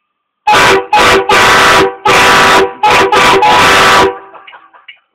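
Train horn blasted at very close range in a small room: a rapid series of about six blasts, some short and some longer, starting about half a second in and lasting some three and a half seconds. Each blast sounds several notes at once, with the room ringing briefly after the last.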